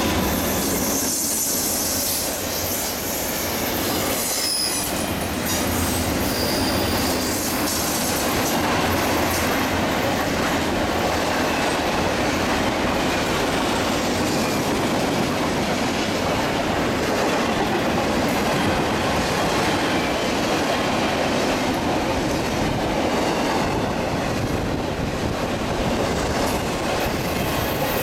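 Norfolk Southern intermodal freight train rolling past: a steady noise of wheels on rail with clickety-clack and high wheel squeal in the first few seconds, as the low rumble of the locomotives fades.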